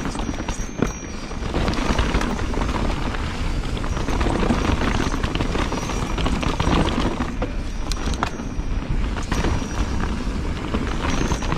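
Ibis HD5 mountain bike ridden fast down a dirt trail: steady wind rumble on the GoPro's microphone mixed with tyre and trail noise, and a few sharp knocks and rattles from the bike over rough ground, one about a second in and a couple around eight seconds in.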